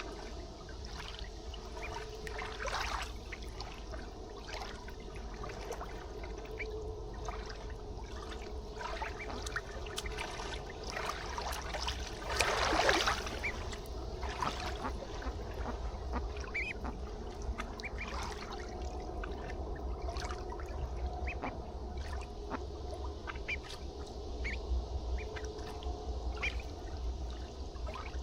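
River ambience: water trickling and lapping, with ducks calling and short high peeps scattered through, and a louder rush of noise about halfway through.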